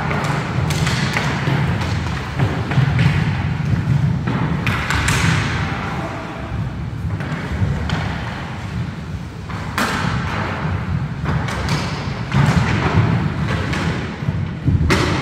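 Inline skate wheels rumbling on a wooden sports-hall floor, with several sharp clacks of hockey sticks striking the ball or puck and on the floor, echoing in the large hall.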